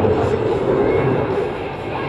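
Steady rumble of an F/A-18F Super Hornet's twin General Electric F414 jet engines in the distance, with spectators talking indistinctly over it.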